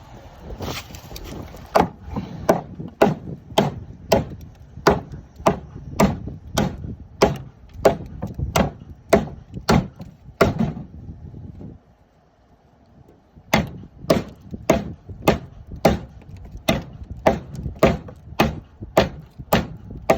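A FOBOS Tier 1C knife's CPM 3V steel blade chopping into a wooden 2x4, one sharp thwack about every two-thirds of a second, knocking out big chunks of wood. The strikes pause for about two seconds near the middle, then carry on at the same pace.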